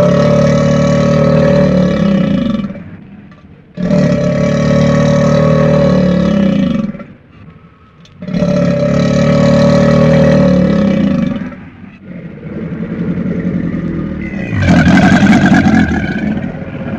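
Crocodile growling calls: three long, drawn-out pitched growls of about three seconds each with short pauses between them, then a rougher, louder growl near the end.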